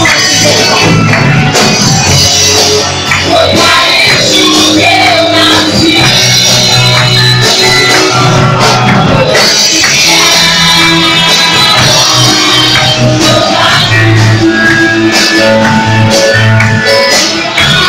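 Live church worship band: women singing a Portuguese-language praise song into microphones over electric guitar, bass and drums, played loud and continuous.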